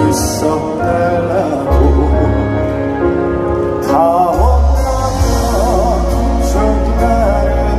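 A man singing a slow Korean trot song live into a microphone over instrumental accompaniment through the concert sound system. A held, wavering note comes a little after the middle.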